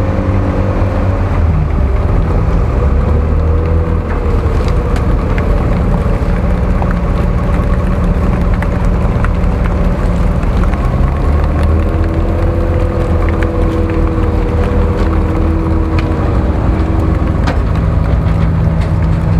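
GAZ-66 truck engine running under load at low speed as the truck crawls through a deep mud rut, its revs rising and falling a few times.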